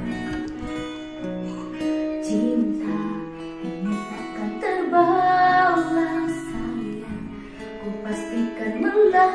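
A woman singing a pop ballad over guitar accompaniment, holding long notes, with a wavering, vibrato-like held note about halfway through.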